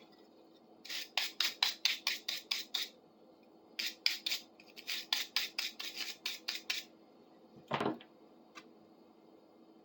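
Rapid back-and-forth scrubbing on the metal handles of a pair of rusty pliers, about five strokes a second in two runs, cleaning off rust and rubber residue. A single knock follows near the end.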